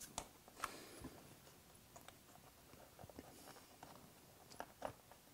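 Faint, scattered clicks and taps of plastic fairing fasteners being handled and pushed into the side fairing of a Suzuki Hayabusa.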